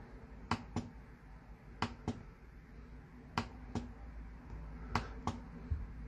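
Keys of a typewriter-style mechanical keyboard being pressed to step through its backlighting modes: four pairs of sharp clicks, about one pair every second and a half.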